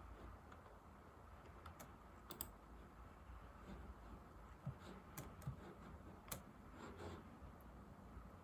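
Old laptop keyboard being typed on: sparse, irregular soft key clicks, a few taps every second or so.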